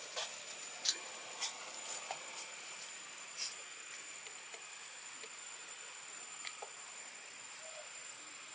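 Outdoor ambience in a tree: a steady high hiss with a thin high tone running through it, and a scatter of short clicks and snaps, most of them in the first few seconds.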